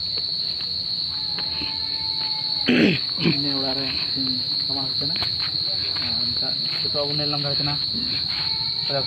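Crickets chirring as a steady high-pitched drone, with people's voices talking in the background and a brief loud rush of noise about three seconds in.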